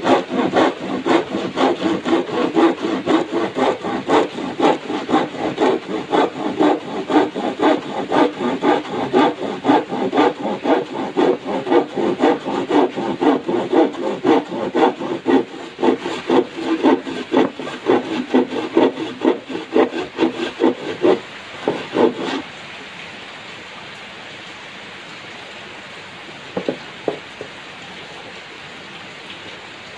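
Manual handsaw cutting through a plywood sheet in regular push-pull strokes, about two a second. The sawing stops about three-quarters of the way through, leaving a steady hiss of rain and a couple of light knocks.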